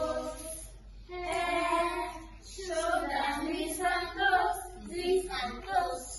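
A group of young children singing an action song together, in sung phrases broken by short pauses.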